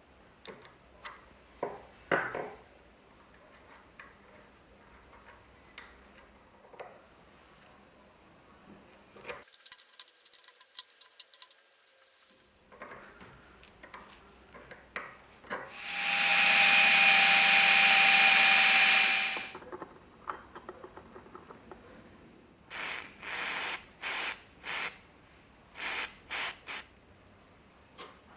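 Small workshop power tool with a steady whine, run once for about three and a half seconds about halfway through, then switched on in several short bursts near the end, between scattered light clicks and knocks of small metal parts being handled.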